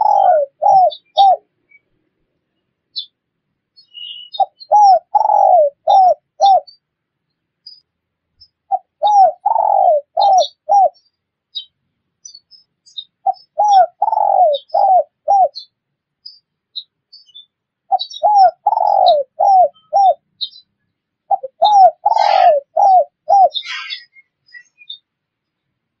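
Spotted dove (tekukur) cooing: a phrase of about five coos, the second or third drawn out and falling, repeated every four to five seconds. Small birds chirp faintly and high above it, most busily near the end.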